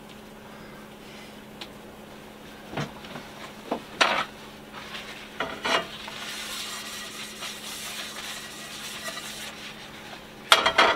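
Scattered knocks and clatter of a frying pan being handled and set down on a propane stove's grate, ending in a cluster of louder clanks near the end. A steady low hum runs underneath, and a soft hiss rises about halfway through.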